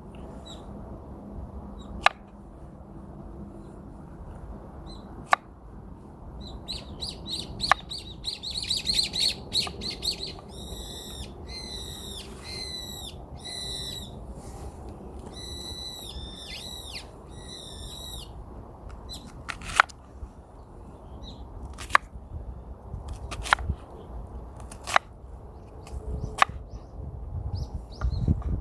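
Small birds calling: a fast high trill, then a run of quick, high, down-slurred chirps, from about a quarter to two-thirds of the way through. Sharp single cracks sound now and then over a steady low rumble.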